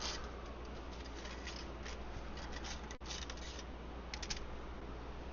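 Short, scratchy rustling bursts of hands handling and patting dry raw fish fillets, over a steady low hum.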